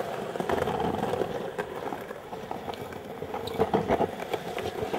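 Skateboard rolling on street asphalt: a steady rumble of the wheels, with scattered light clicks and a few sharper knocks around four seconds in.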